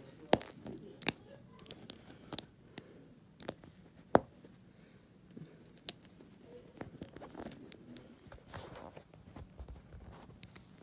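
Small plastic Lego bricks clicking and tapping as they are picked up, set down and pressed together: a string of sharp clicks, the loudest about four seconds in, followed by softer scratchy handling.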